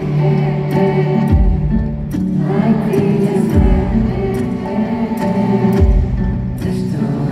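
Live K-pop ballad heard over an arena sound system from the audience: a male voice singing over sustained backing chords, with a deep bass beat about every two seconds.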